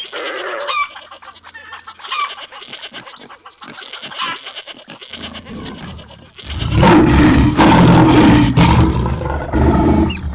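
Chicken clucking sound effects over a rapid patter of clicks, then about six and a half seconds in a loud, low rumble starts suddenly: the sound effect of a running animal stampede.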